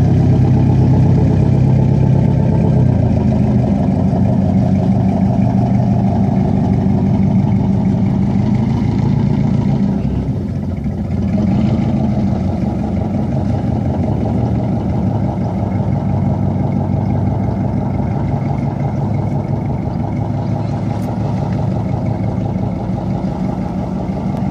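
Diesel engines of an old Princess 55 motor yacht running steadily at low harbour speed, a deep even drone that fades a little as the boat pulls away, with a brief dip about ten seconds in.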